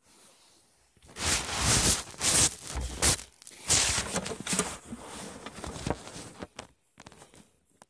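Rustling and bumping handling noise in irregular crackly bursts as the phone is moved and repositioned over the plate, easing off into a few scattered clicks near the end.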